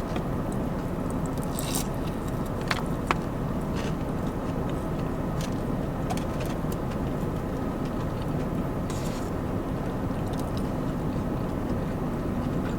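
Close-up eating sounds: biting and chewing fried chicken, with scattered small clicks and crunches over a steady low hum.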